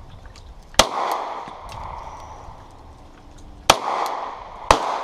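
Three pistol shots: one about a second in, then two more a second apart near the end, each followed by a short echo.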